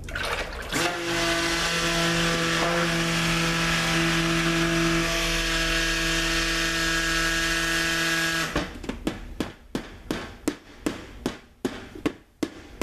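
Handheld Cuisinart Smart Stick immersion blender running steadily for about seven seconds while lye water is poured into soap oils, then it stops. After it, a quick run of sharp taps as a plastic tub is knocked to shake out the last of its contents.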